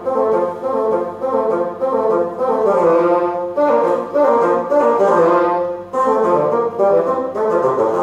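Two bassoons playing a melodic passage together, held notes changing about every half second in phrases with short breaks between them. The playing stops near the end.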